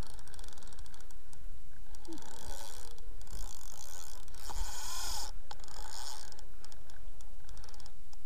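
Spinning reel being cranked, its gears clicking and whirring in uneven spells as line is wound in against a hooked fish.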